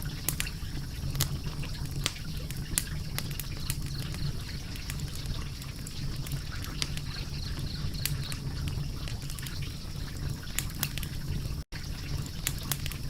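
Wood fire crackling: sharp, irregular pops and snaps over a steady low rumble. The sound drops out for an instant near the end.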